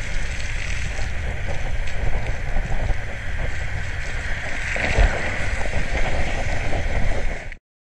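Wind buffeting the microphone of a moving bicycle's camera, with the steady hiss of tyres on a wet road. It cuts off suddenly near the end.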